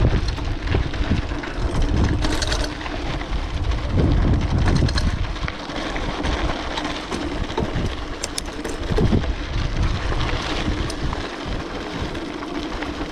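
Wind buffeting the microphone of a moving bicycle in uneven gusts, with a few faint ticks and rattles about eight seconds in.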